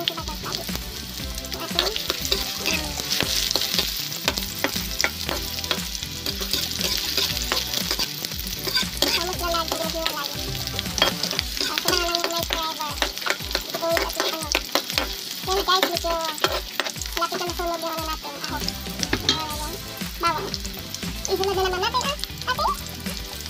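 Chopped garlic and sliced onion sizzling in hot oil in a wok, with a metal spatula stirring and scraping against the pan in frequent short clicks.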